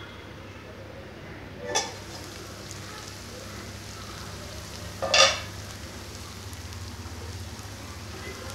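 Metal pot lid clinks as it is lifted off the kadai, and the chicken starts sizzling steadily in its oil, its liquid cooked off. A louder metal clank comes about five seconds in.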